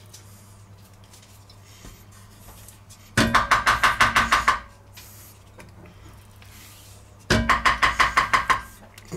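A wooden spatula rapidly scraping and knocking lard into an empty enamelled cocotte, the pot ringing under the strokes. It comes in two bursts of quick, even strokes, about three seconds in and again about seven seconds in, each lasting about a second and a half.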